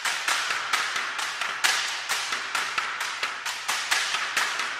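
A steady run of sharp, clicking taps, about three a second.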